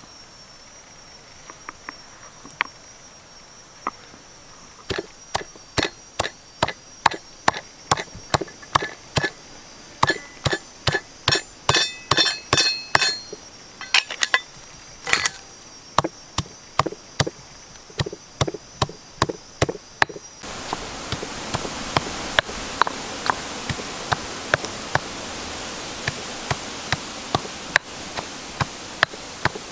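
Stone pestle pounding sliced lemongrass and shallots in a stone mortar: a run of sharp knocks, about two a second, starting about five seconds in. Steady insect trilling runs behind, and a louder hiss comes up after about twenty seconds.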